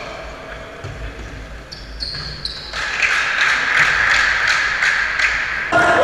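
Basketball game sounds in a reverberant gym: a ball bouncing and sneakers squeaking on the wooden floor, growing louder from about halfway through.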